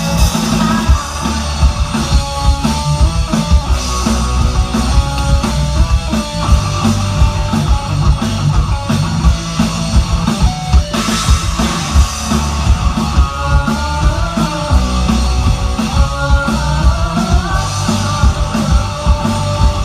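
Rock music with a drum kit and guitar, played loud with a steady beat.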